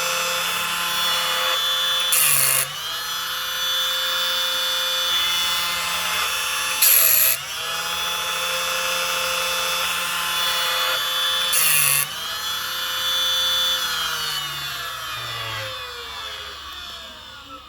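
Automatic chainsaw chain sharpener running: its electric motor spins steadily, with three short, loud grinding bursts about five seconds apart as the wheel sharpens a cutter tooth. Near the end the motor shuts off and winds down, falling in pitch.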